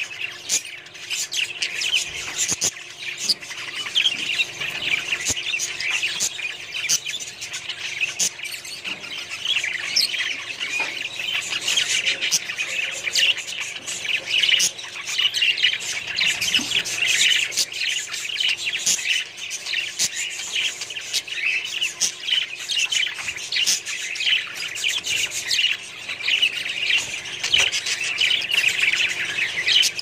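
Many budgerigars chattering together: continuous warbling and chirping, dense and high, with frequent sharp chirps.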